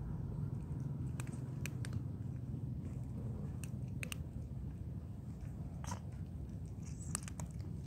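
Stray cats crunching dry kibble off concrete, with sharp crunches coming irregularly over a steady low hum.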